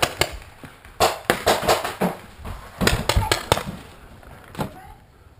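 Paintball markers firing: a series of sharp pops in irregular bursts, thickest in the middle, trailing off near the end.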